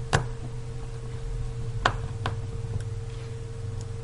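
A few sharp clicks of a small screwdriver working the battery-connector screws inside an iPhone 4S: one just after the start, then two close together about two seconds in, with fainter ticks later, over a steady low hum.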